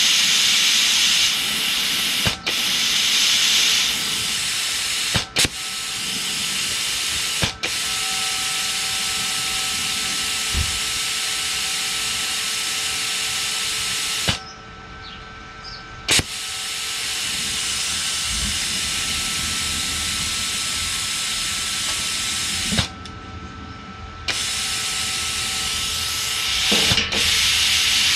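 Compressed air hissing steadily from a plasma cutter torch (YESWELDER CUT-65DS) as it is fired at sheet steel, with sharp clicks now and then. The air cuts off twice for a second or two. The owner thinks there is too much air and that it blows out the arc.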